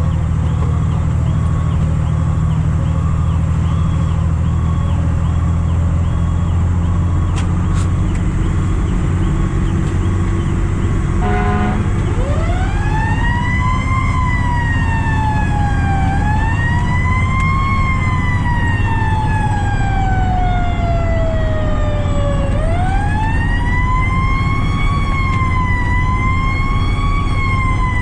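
Fire apparatus engine running steadily, heard from the cab. About twelve seconds in, after a brief blast, a siren winds up quickly and then slides slowly down in pitch, several times over.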